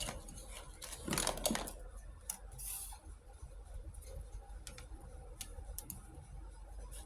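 Small plastic toy kitchen pieces being handled, giving scattered light clicks and taps, with a short rustling scrape about a second in.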